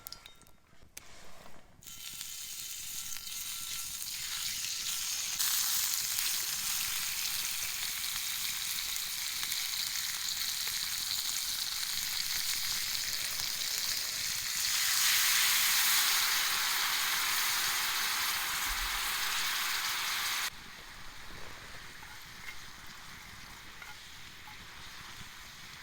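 Sukiyaki ingredients sizzling in a pan over a campfire, a dense frying hiss that swells louder in steps and then cuts off abruptly, leaving a fainter hiss.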